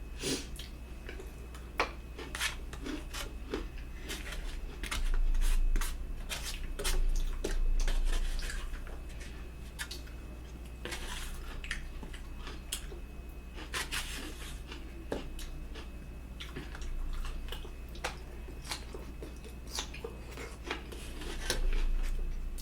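Eating at a plate: a metal fork clicking and scraping irregularly against the dish while spaghetti is twirled and eaten, with a few louder stretches of chewing and mouth sounds.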